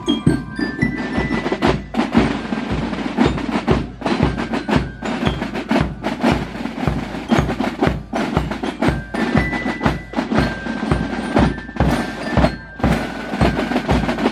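Marching band drum corps playing a march: side drums rattling over a bass drum beating about twice a second, with cymbals. Glockenspiel notes ring above the drums. The playing stops right at the end.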